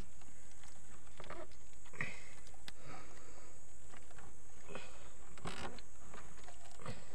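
Hand-handling noises as a fish is worked out of a nylon gillnet in a wooden boat: scattered soft rustles and a few small knocks, over a steady high-pitched hiss.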